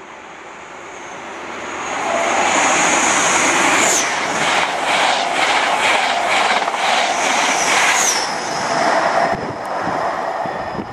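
East Midlands Trains HST passing through at speed. A high whine drops in pitch as each power car goes by, the leading one about four seconds in and the trailing one near eight seconds. Between them the coaches' wheels make a rhythmic clatter of about two beats a second, and the noise fades as the train recedes.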